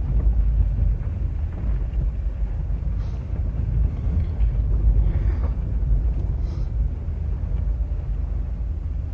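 Car driving on a gravel dirt road, heard from inside the cabin: a steady low rumble of tyres and engine, with a couple of faint light rattles.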